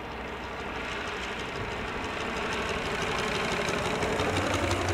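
A model airplane's engine running steadily, growing gradually louder.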